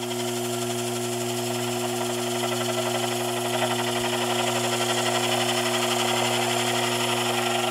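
Sherline mini lathe running with a steady hum while the cutter takes a light pass, turning a taper on the workpiece.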